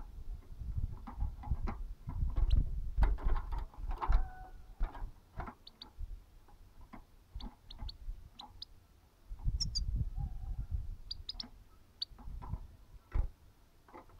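A caged European goldfinch giving a few short, high chirps among irregular clicks and knocks of movement in the cage.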